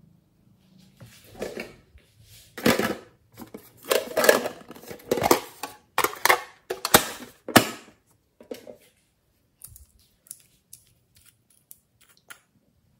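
Hands rummaging through a box of small items: a quick run of clicks and scrapes with rustling for several seconds, then a few light ticks.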